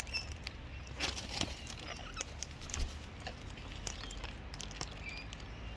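Birds pecking at seed in a feed bucket: scattered clicks and taps, with a few faint, short bird chirps.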